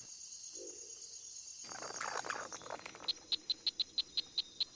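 Natural ambience of insects: a steady high-pitched drone, a brief rustle about two seconds in, then a run of short, evenly spaced chirps, about six a second.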